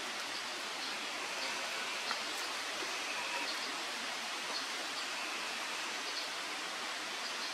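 Steady rain falling on a pond and the surrounding leaves, an even hiss with a few faint high ticks.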